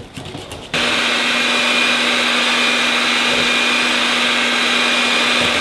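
Electric hand mixer switched on under a second in, then running at a steady speed with a constant hum as its beaters whip thin pancake batter in a glass jug.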